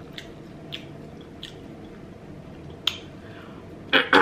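Close-miked eating: chewing a mouthful of biryani rice, with a few short, sharp clicks of a metal fork on the foil tray as a forkful is scooped, the loudest near the end.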